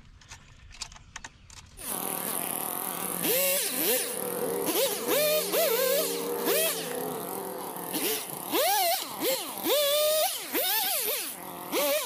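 Chainsaw engine running and revving up and down over and over, its pitch rising and falling repeatedly. It starts suddenly about two seconds in, after a few faint clicks.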